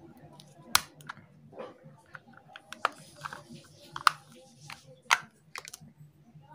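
Plastic controller box of an LED string light being prised open with a screwdriver: irregular sharp clicks and snaps of the plastic casing, the loudest about a second in and again near the middle.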